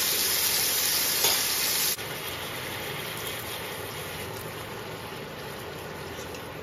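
Food sizzling in a pan: a loud steady hiss drops suddenly about two seconds in to a quieter sizzle with faint crackles.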